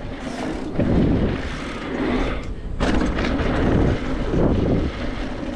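Wind buffeting the microphone of a mountain bike riding fast down a dirt trail. The low rumble swells in gusts three or four times, with scattered clicks and rattles from the bike over the bumps.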